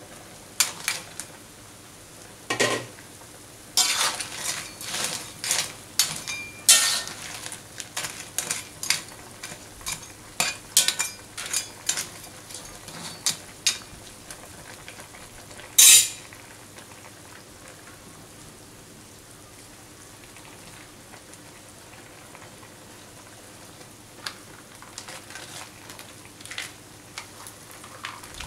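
Metal spatula scraping and clanking against an aluminium wok as mantis shrimp in sauce are stirred, many quick strokes over a low sizzle from the simmering pan. One louder clatter comes about sixteen seconds in, then the stirring pauses while the sizzle goes on, and the scraping starts again near the end.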